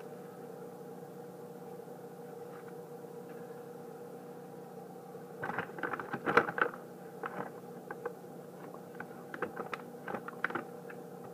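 A steady low hum with several fixed tones throughout, from a running motor or fan. From about five and a half seconds in, a scatter of crinkles, clicks and light knocks as sandwich ingredients are handled on the kitchen counter.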